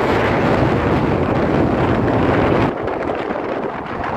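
Wind buffeting the microphone over the road noise of a moving vehicle: a steady rushing rumble that eases somewhat about two-thirds of the way through.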